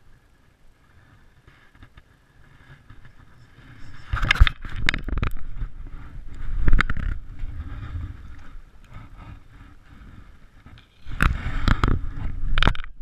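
Tall grass and reeds rustling and brushing against a body-worn camera, with knocks and handling noise on the camera. It comes in two loud stretches, one starting about four seconds in and the other near the end.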